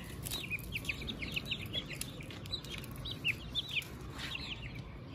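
Young Aseel chicks peeping as they feed: many short, high chirps, several a second.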